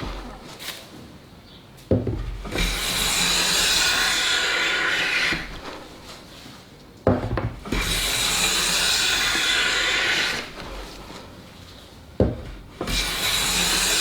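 Luban hand plane taking shavings along a board: long rasping strokes of about two and a half seconds, one roughly every five seconds, each starting with a sharp knock.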